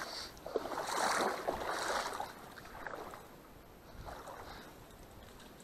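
Splashing and sloshing of shallow marsh water with rustling reeds, as someone moves through the water and reed bed. It is busiest in the first couple of seconds, then quieter, with a short flurry about four seconds in.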